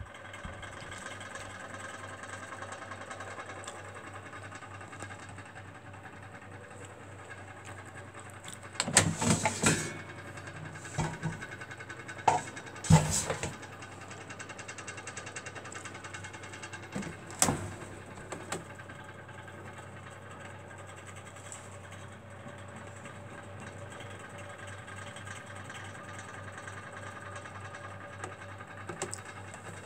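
Plastic knocks and scrapes of an air fryer's basket drawer being pulled out and handled, in a cluster about a third of the way in, with one more sharp knock a little later, over a steady hum.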